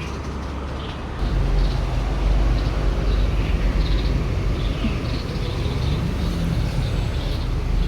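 Parent birds calling noisily over their grounded fledgling: many short chirps, repeated again and again, over a steady low rumble that grows louder about a second in.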